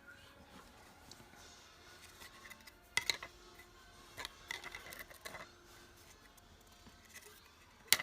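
Small tool accessories and packaging being handled: scattered light clicks and rustling, with a sharp click about three seconds in and another near the end.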